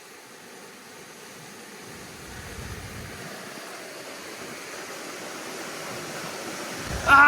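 Waterfall rushing steadily, growing gradually louder. Right at the end a woman cries out in pain as a bee sting is pulled from her foot.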